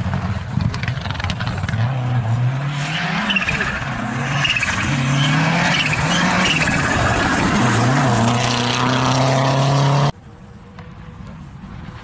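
Lancia Delta Integrale rally car driving hard on a gravel stage. Its engine pitch climbs and drops several times as it shifts up through the gears, over the hiss of tyres on loose gravel. About ten seconds in, the sound cuts off abruptly to a much quieter, distant engine.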